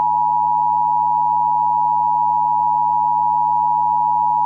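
Emergency-broadcast alert tone: one loud, steady electronic tone held unchanged at a single pitch.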